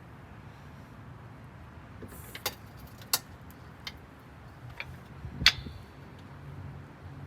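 A handful of short, sharp metallic clicks and knocks, irregularly spaced, over a low steady hum. The loudest comes about five and a half seconds in and rings briefly.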